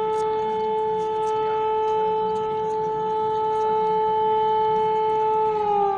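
Civil-defence warning siren sounding one long steady tone, which begins to slide down in pitch near the end.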